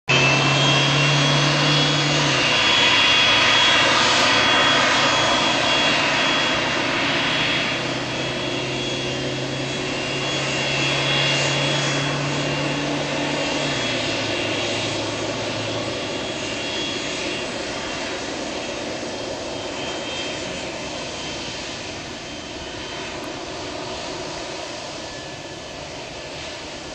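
Jet engines of a Boeing 757-200 running at low taxi power: a steady high whine over a rushing hiss, slowly growing fainter.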